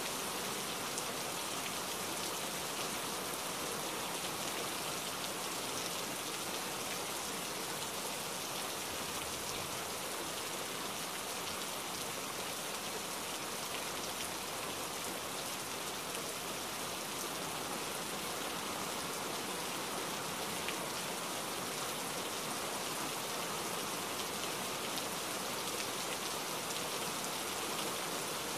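Rain falling steadily: an even hiss that does not change, flecked with small ticks from single drops striking.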